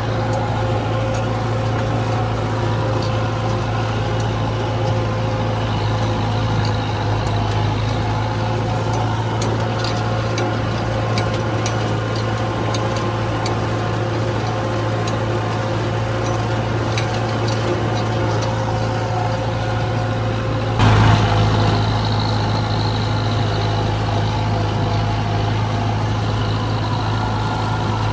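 A large engine running steadily with a constant low hum. About two-thirds of the way through there is a brief louder rush of noise.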